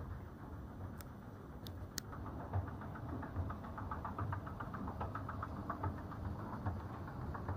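Escalator running: a steady low machine hum, with a fast, even clicking from the moving steps that sets in about two and a half seconds in. There are a few sharp clicks before it.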